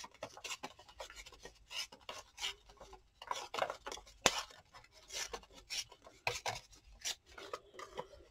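Short, irregular scratchy rubbing strokes on paper, from hands working a paper-craft journal page.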